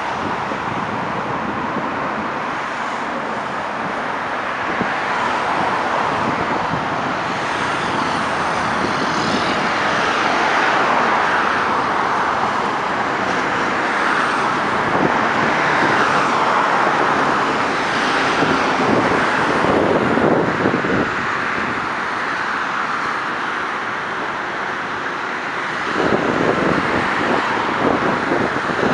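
Busy road traffic, with several vehicles passing one after another in rising and falling swells, the loudest near the end.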